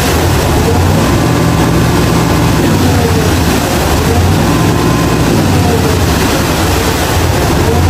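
Steady engine and road noise of a vehicle on the move, with a strong low rumble.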